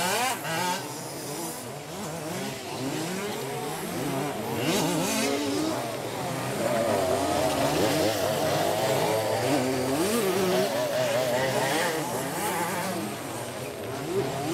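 Several 1/5-scale RC off-road buggies with small two-stroke petrol engines racing together, each engine revving up and down in quick, overlapping rises and falls of pitch as they accelerate and brake around the track.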